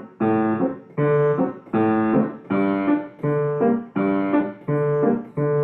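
Piano playing a repeated chordal accompaniment in a steady dance rhythm, with a short rhythmic pedal: each chord rings briefly and is then damped, about every three-quarters of a second.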